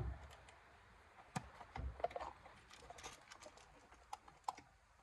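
Cardboard wiring-kit box and its contents being handled and packed: scattered light clicks and taps, with a dull thump at the start and another about two seconds in.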